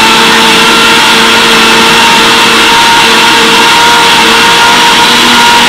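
Electric countertop blender motor running steadily at speed, blending a jar of spinach, mango, banana and yogurt into a smoothie.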